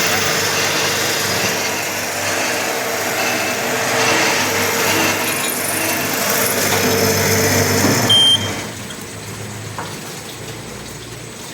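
Automatic drilling and tapping machine running, a steady motor hum with machining noise. About eight seconds in a brief high tone sounds, and the noise drops to a quieter hum.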